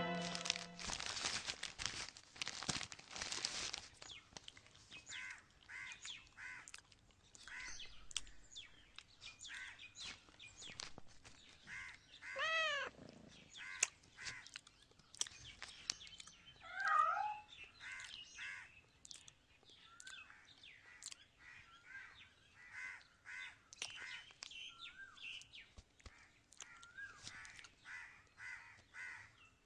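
Plastic wrapping rustling and crinkling for the first few seconds. After that, faint bird chirps repeat steadily, and a cat mews about halfway through, with a second, shorter call a few seconds later.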